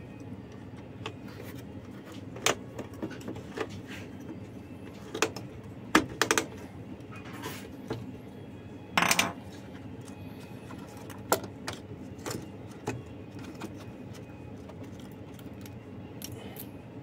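Scattered light clicks and clinks of small screws, a tool and plastic parts as the upper burr holder of a Saeco coffee grinder is unscrewed and lifted out, with a longer rattle about nine seconds in. A low steady hum runs underneath.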